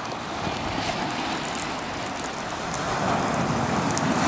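Surf washing over a rocky, cobbled shore: a steady rushing hiss with faint crackling that grows louder about three seconds in as a wave breaks against the stones.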